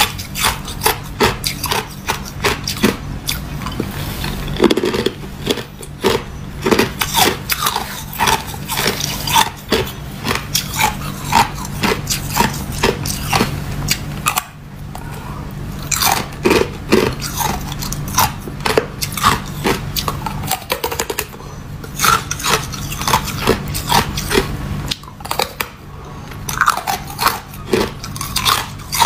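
Clear ice being bitten and chewed: a fast run of sharp, brittle crunches and cracks, with a brief lull about halfway through before the next bite.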